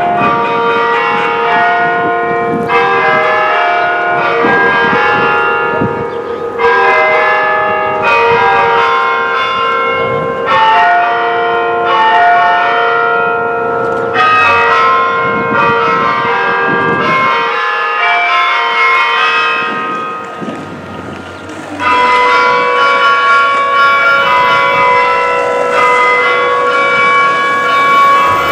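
Restored school tower bells chiming, a new bell struck every one to two seconds, the notes ringing on and overlapping. About two-thirds of the way through the ringing dies down for a few seconds, then a loud fresh strike starts it again.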